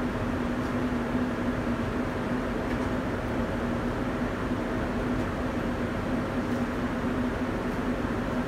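Airliner cabin noise at cruise: a steady rush of engine and airflow noise with a constant low hum.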